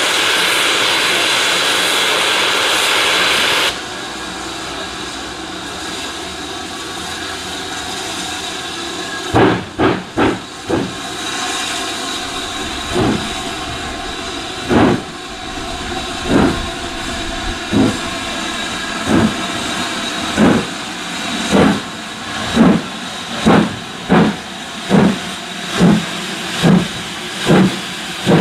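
BR Standard Class 7 'Britannia' Pacific No. 70000, a two-cylinder steam locomotive, starting away. Steam hisses from the open cylinder drain cocks, loud for the first few seconds. From about ten seconds in come exhaust beats from the chimney: first three close together, then slow single beats that steadily quicken as the engine gathers speed.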